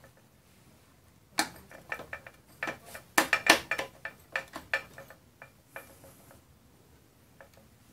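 Metal parts of an electric dirt bike's belt drive and swingarm clicking and knocking as they are pushed and shifted by hand while being lined up. There is a quick irregular run of sharp clinks starting about a second and a half in, bunched most thickly near the middle, and dying away about six seconds in.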